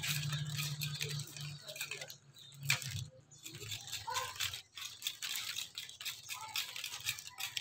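Knife blade scraping and shaving the coarse fibrous husk off a sprouting coconut, cleaning it away. A quick run of short scraping strokes, with a brief lull between about two and three and a half seconds in.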